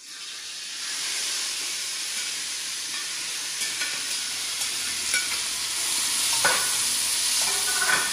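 Chopped sweet peppers and onion dropped into hot coconut oil in a wok, frying with a loud steady sizzle that swells over the first second. From about halfway in, a spatula scrapes and clicks against the pan as they are stirred.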